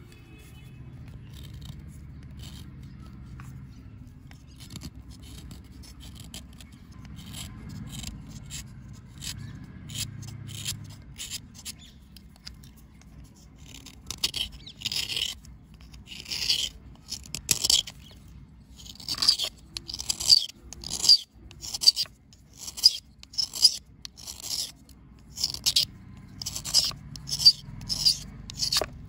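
A small knife scraping a dry, chalky cleaning bar in short strokes, about one a second from about halfway in. Before that, only faint crumbling and light ticks as bits of the bar fall away.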